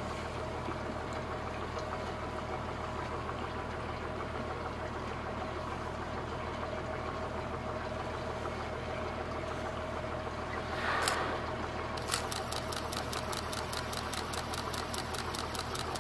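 The inboard engine of an old wooden fishing boat running steadily under way, a low even drone. About twelve seconds in, a fast, even ticking of about five a second joins it.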